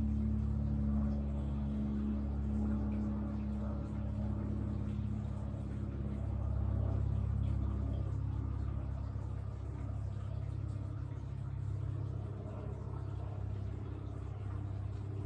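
A low, steady rumble that swells and eases over several seconds, with soft sustained music tones fading out in the first few seconds.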